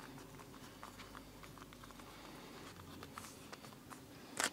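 Faint soft rustling and light scattered taps of hands folding and pressing a thin sheet of pasta dough on baking paper, with one sharper click just before the end.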